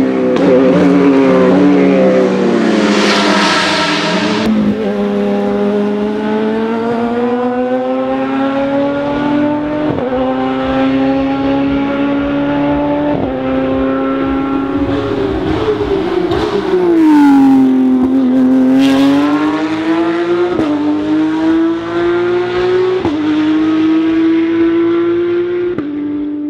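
Radical SR3's 1500 cc Suzuki GSX-R four-cylinder engine pulling hard through the gears: its pitch climbs and drops sharply at each upshift, about five times. In the middle the pitch falls away and climbs again before more upshifts.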